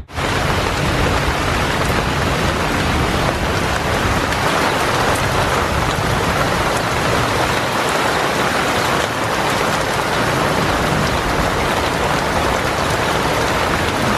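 Steady rain falling on garden plants and soil, an even hiss that starts and stops abruptly.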